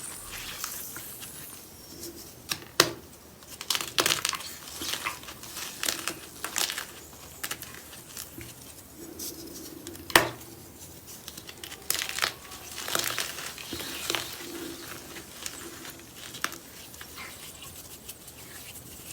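Crunchy slime being squeezed and pressed by hand, giving irregular crackles and pops, with two sharper pops about 3 and 10 seconds in.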